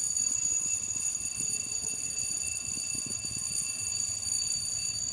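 Steady low rumble of a motor yacht under way, with the noise of wind and water going past the bow, and a faint steady high-pitched whine.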